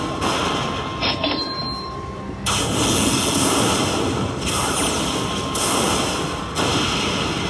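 Lightning Link slot machine playing its bonus-tally sound effects: a run of noisy lightning-strike effects about a second apart as each pearl's credit value is added to the win meter. There is a quieter stretch with a faint steady tone between about one and two and a half seconds in.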